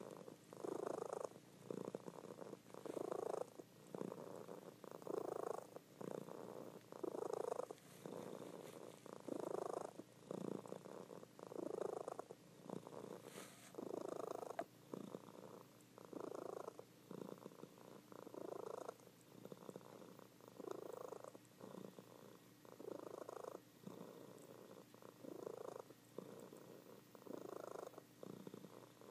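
Domestic calico cat purring steadily while asleep, the purr swelling and easing with each breath about every two seconds.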